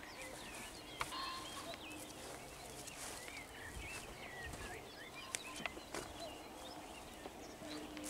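Dawn chorus of songbirds: many short chirps and whistled phrases overlapping. There are a few sharp clicks.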